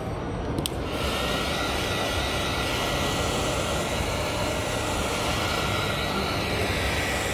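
A small machine running with a steady whir and a high whine, switching on about a second in and stopping near the end.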